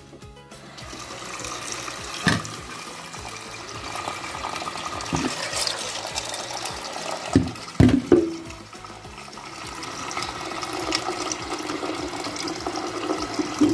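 Kitchen tap running water into a pot of macaroni, filling it steadily, with a few knocks as the pot is shifted.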